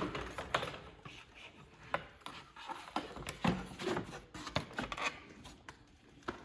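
Irregular light clicks and knocks of display hooks being fitted onto the rungs of a display ladder, with a few sharper taps among them.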